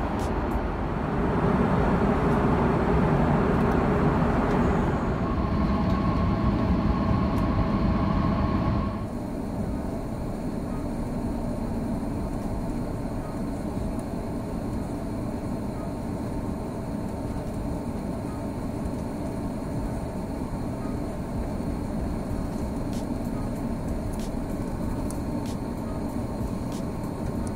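Steady cabin noise of an Airbus A340-600 in flight on descent: a continuous low rumble of engines and airflow heard inside the cabin. It is louder for the first nine seconds or so, then drops suddenly to a quieter, even hum.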